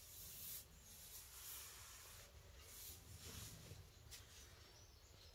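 A cat chewing raw chicken feet: faint, irregular scratchy crunching.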